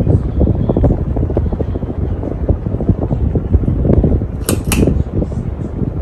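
A 52-inch Harbor Breeze Edenton ceiling fan running, heard as a heavy, unsteady low rumble of moving air. Two sharp clicks come about four and a half seconds in.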